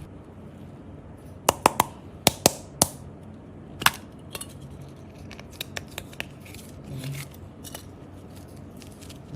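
A run of about six sharp clicks in quick succession, another click a second later, then softer scattered clicks: small hard objects being handled and knocked together.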